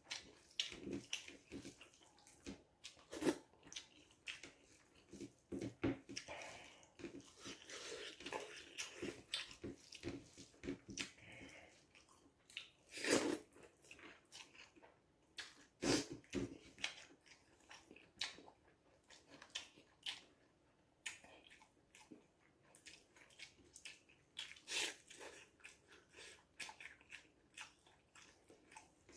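Scattered clicks and knocks of kitchen utensils and dishes being handled, the loudest about 13, 16 and 25 seconds in, with a soft hiss about 7 to 10 seconds in.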